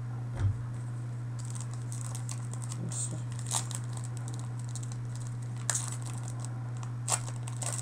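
Trading-card pack wrapper crinkling and cards being handled, in short scattered rustles and clicks, over a steady low hum. A soft thump comes about half a second in.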